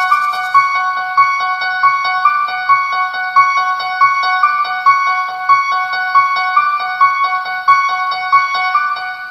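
Piano music: a fast, repeating figure of high notes played over and over, stopping abruptly near the end.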